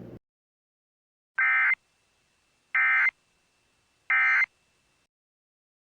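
Emergency Alert System (SAME) end-of-message signal: three short, identical bursts of warbling digital data tones with about a second of silence between them, marking the end of the alert.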